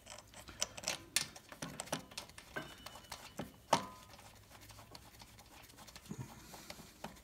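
Irregular light metallic clicks and taps as screws are fitted by hand into a pressure washer pump housing, with one sharper click a little past the middle; the clicks thin out in the last few seconds.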